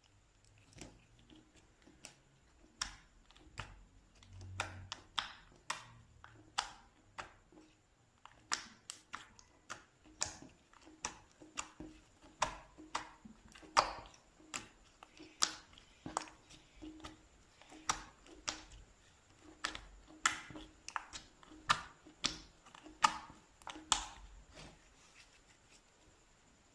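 Slime being pressed and squeezed, giving an irregular run of sharp clicking pops, about one or two a second, that grow denser partway through and stop shortly before the end.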